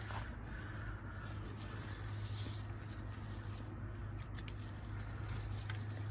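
Steady low hum under light handling noise, with a sharp click at the start and a few faint clicks about four seconds in, as tomatoes are set on a kitchen scale.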